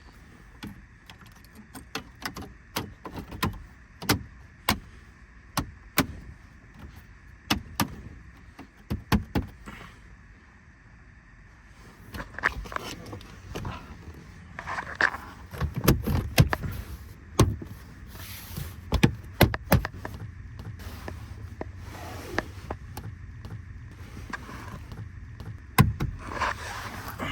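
Sharp plastic clicks and knocks of dashboard trim being handled and pressed back into place, coming every second or so, then in busier clusters. A low steady hum comes in about two-thirds of the way through.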